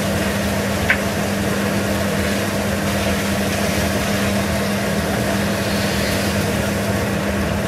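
Steak frying in a pan, a steady sizzle over a constant low hum.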